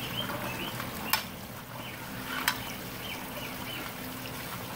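Long wooden paddle stirring crawfish in a big aluminum boil pot, the seasoned water sloshing. Two sharp knocks stand out, about a second in and again about two and a half seconds in. The stirring cools the boil water so the crawfish sink and soak up the seasoning.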